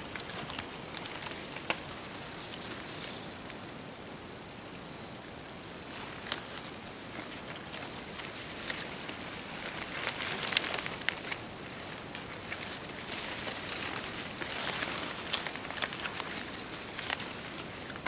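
Footsteps and rustling through leaf litter and undergrowth on a forest floor, with scattered twig snaps, heavier in the second half. Short high chirps repeat about once a second in the first half.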